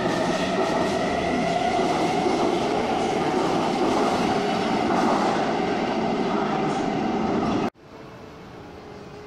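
Taipei MRT Bannan Line train running past the platform screen doors, its wheels rumbling on the rails with the traction motors' whine rising slightly as it gathers speed out of the station. The sound cuts off abruptly near the end, leaving only a quieter platform hum.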